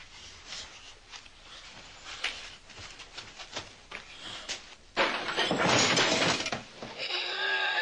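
Film soundtrack of a violent struggle: scattered knocks and scuffling, then a sudden loud harsh crash about five seconds in, and a wavering high cry near the end.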